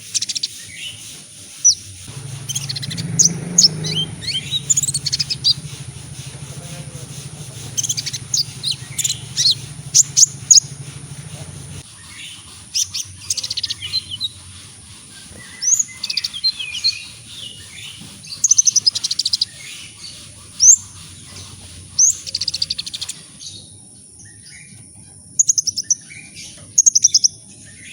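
Kolibri ninja sunbird singing: rapid high-pitched chirps and twittering phrases in clusters with short pauses. A faint steady high whine runs underneath, and a low hum comes in about two seconds in and stops about twelve seconds in.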